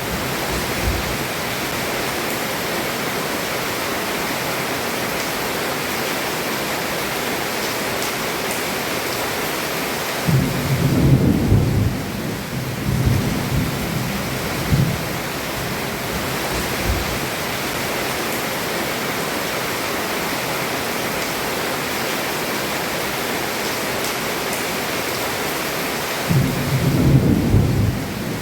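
Heavy rain pouring steadily on a roof, with thunder rumbling about ten seconds in and again near the end.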